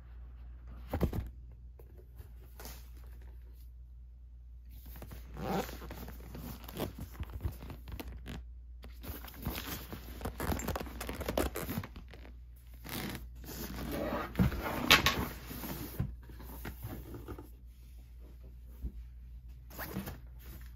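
Unboxing noises: the cardboard lid of a drone box lifting off with a knock about a second in, then rustling and scraping as a padded fabric shoulder bag is worked out of the box, loudest about three quarters of the way through.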